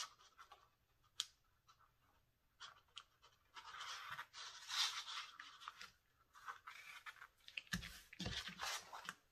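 Elastic cord being pulled through a punched hole in a fabric-covered planner cover: a long scratchy rub as the cord slides through, around the middle, amid small taps and rustles of handling. Near the end a few soft thumps as the cover is pressed flat.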